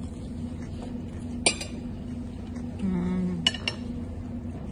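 Cutlery and dishes clinking: one sharp clink about one and a half seconds in and two more in quick succession a couple of seconds later, over a steady low hum. A brief low voice-like sound falls between them.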